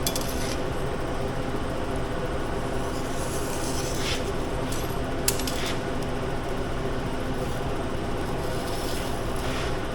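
A few short, light scraping strokes of a marker drawing a line across the shop table, with one sharp click about five seconds in, over the steady hum of a shop fan.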